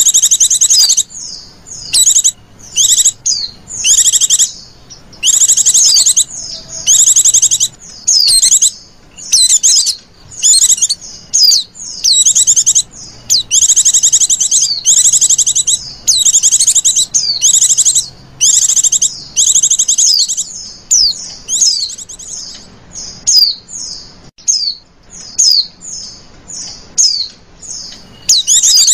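White-eyes (pleci) singing: loud, high-pitched, rapid warbling phrases repeated about once or twice a second. After about twenty seconds they give way to shorter, softer chirps. This is a lure call for attracting wild white-eyes.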